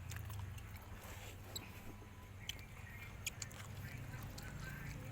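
A person chewing food with wet lip smacks and mouth clicks, scattered short clicks over a low steady hum.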